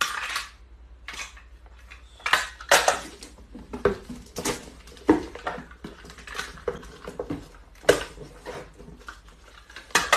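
Packing tape pulled off a handheld tape dispenser and torn, with cardboard boxes being handled: a run of short, irregular rips and clatters.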